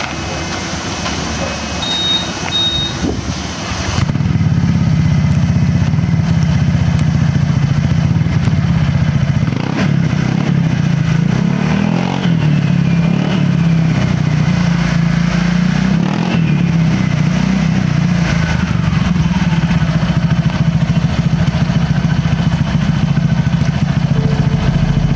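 Honda PCX 150 scooter's single-cylinder engine running through a TZM Project STD SS Pro stainless aftermarket exhaust with the dB killer removed, idling with a few light throttle blips; louder from about four seconds in. The exhaust note is deep and mellow ('ngebass adem').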